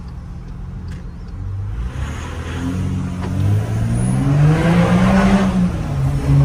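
VW Amarok V6 turbodiesel, stage 2 remapped with a straight-through 3-inch stainless steel exhaust, accelerating hard, heard from inside the cab. The engine note climbs in pitch and loudness from about two seconds in to a peak near five seconds, then eases slightly near the end.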